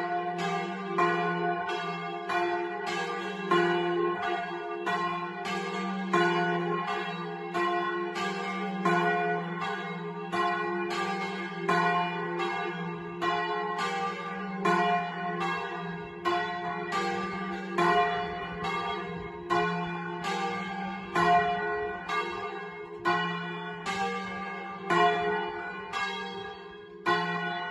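Two swinging church bells, tuned to F3 and G3 (cast by the Magni founders in 1948 and 1853), rung a doppio. Their clappers strike in a steady rhythm of a little more than one stroke a second, each stroke ringing on into the next.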